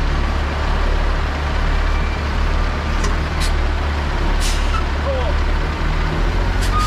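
International 4900 truck's diesel engine running with a steady low drone, with several short hisses: a few about halfway through and another near the end.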